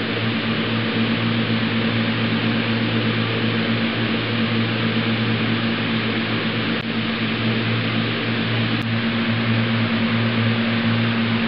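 Steady machinery hum in a large vehicle bay: a low drone with a second, higher tone above it, under an even rushing hiss.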